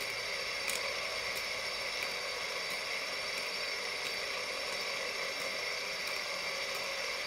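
Honeywell altitude indicator's small drive motor and gear train running, winding the pointer and counter drums down through the altitudes: a steady whir with faint regular ticks about every two-thirds of a second.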